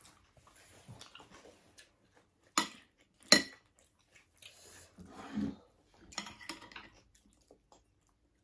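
Cutlery clinking against dishes during a meal: two sharp clinks about a third of the way in, then softer clattering and scraping.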